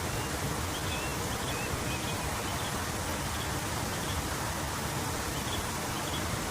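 Steady, even rushing noise with no rhythm, and a few faint high chirps in the first two seconds and again near the end.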